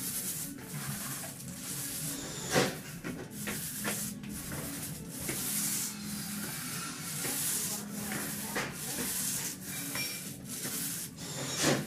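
Roller on a long pole being worked back and forth over a floor wet with epoxy top coat on vinyl flakes: an uneven rubbing swish that swells and fades with the strokes. A sharp knock about two and a half seconds in and another near the end.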